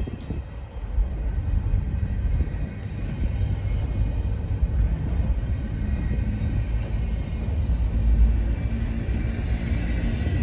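Slow-moving CN intermodal freight train rolling past, a steady low rumble of wheels on rails.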